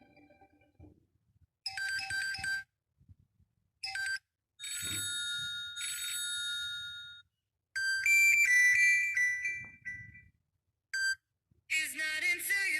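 Huawei phone ringtones and alert tones playing one after another. Short electronic chimes and jingles, from a brief blip to about two and a half seconds long, are separated by silent gaps. A busier melodic ringtone begins about a second before the end.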